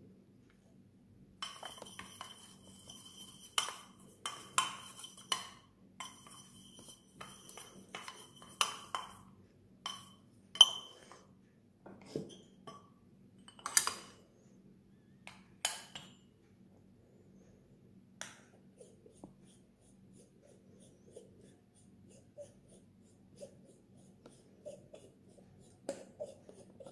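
Sharp metal clinks and taps as an espresso portafilter, dosing funnel and coffee tools are handled and knocked on the counter, thick in the first ten seconds over a faint high hum, with a few louder knocks up to about sixteen seconds in and then only scattered faint ticks.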